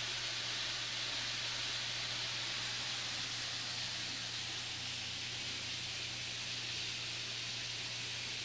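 Steady hiss of a waterfall pouring over a rock ledge into a wooded gorge, with a low steady hum underneath.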